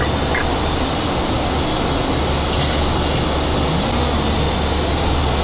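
Steady flight-deck noise of a Boeing 737-800 in the climb: an even rush of air with a low hum under it. Two short hisses come about two and a half and three seconds in.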